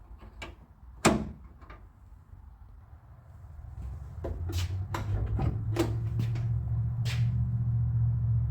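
Sharp metal clicks and knocks from a car door's latch and lock handle being worked loose, the loudest about a second in and several more between four and seven seconds in. A low steady hum rises in from about three seconds in.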